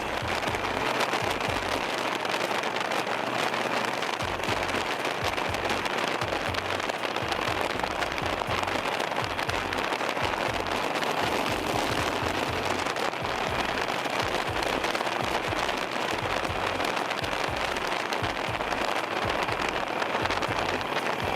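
Steady rushing, crackling wind noise on an action camera's microphone while riding a motorcycle at speed, with uneven low rumbles of wind buffeting.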